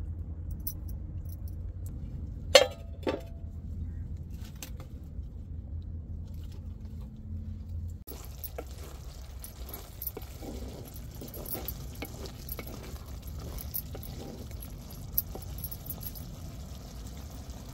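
A metal plate set down as a lid on a clay cooking pot, with one sharp clink and a short ring, then a lighter second clink about half a second later. After that there is a low steady background with faint scattered crackles from the liver curry simmering over a wood fire.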